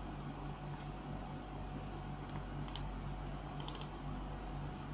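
A few faint clicks, in small groups about two and a half and three and a half seconds in, over a steady low electrical hum.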